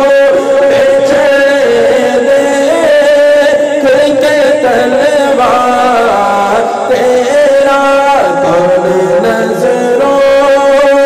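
A man singing a naat unaccompanied into a microphone, drawing out long melismatic phrases that bend up and down in pitch over a steady held note.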